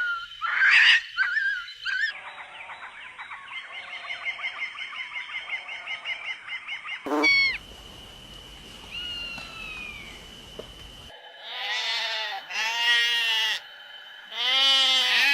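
A series of animal and bird calls cut together from separate clips. A fast run of repeated chirps gives way to a few falling whistles, then to longer drawn-out calls, each change coming suddenly.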